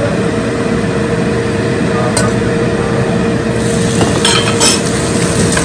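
Metal ladle and utensils clinking against a stainless steel stock pot and bowl as sliced beef tendon is tipped into the broth: a single clink about two seconds in, then a quick cluster around four seconds in. Under it runs a steady rushing noise with a constant hum.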